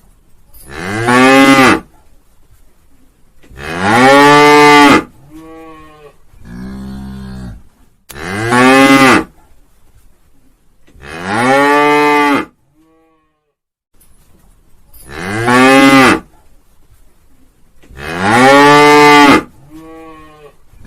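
Cow mooing over and over: six loud moos of about a second each, every one rising and then falling in pitch, with quieter, lower moos between them. The same sequence of calls repeats about every seven seconds.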